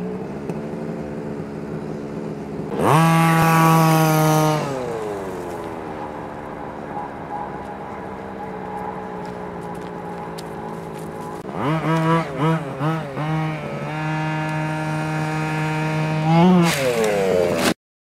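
HPI Baja 5T RC truck's 26cc two-stroke gas engine running and revving: it rises sharply about three seconds in and winds back down, blips the throttle on and off several times around the middle, then revs up again before the sound cuts off suddenly near the end.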